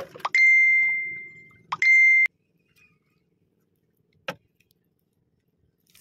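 Two high-pitched ringing tones: the first rings out and fades over about a second and a half, the second follows at once and cuts off sharply, over a faint low rumble that stops at the same moment. Then near silence, broken once by a single click.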